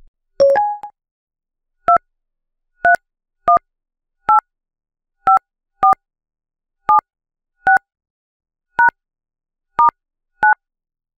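Touch-tone telephone keypad being dialed: eleven short dual-tone key beeps at uneven spacing, about half a second to a second apart, after a brief two-note beep at the start.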